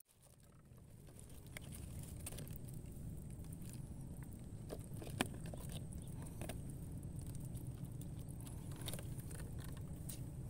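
Scattered small clicks and taps of hands handling gear in a small wooden boat, over a steady low rumble; the sound fades in at the start.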